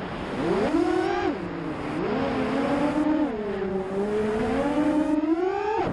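FPV racing quadcopter's four brushless motors (TBS Mr. Steele 2306, 2345 KV) and 5-inch props whining as they are heard from the onboard camera. The pitch rises and falls with the throttle: it dips twice early on, then climbs steeply just before the end.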